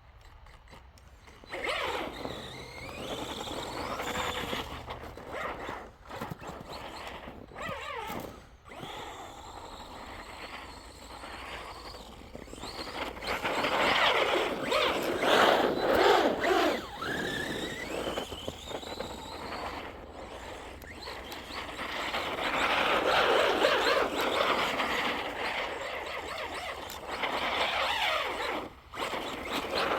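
Electric RC monster truck driven hard through snow: its motor whines, rising and falling in pitch as it speeds up and slows, with bursts of louder running around the middle and again later on.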